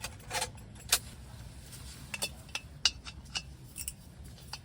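Scattered clinks and clicks of small hard items, metal and glass, being handled, about a dozen irregular taps with some ringing briefly, over a low steady rumble.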